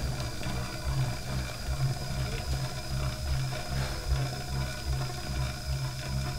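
Exercise bike rigged as a generator, whirring under hard pedalling as it powers a 700 W toaster. Its low hum swells and fades in a steady rhythm with the pedal strokes.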